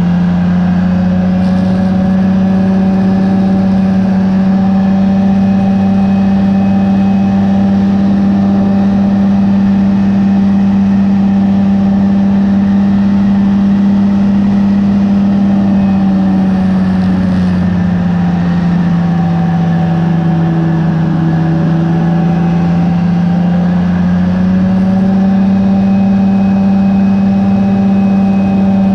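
Rotax 503 DCDI two-cylinder two-stroke engine of a Phantom X1 ultralight running steadily at cruise power in flight. Its pitch sags a little for several seconds past the middle, then comes back up about three quarters of the way through.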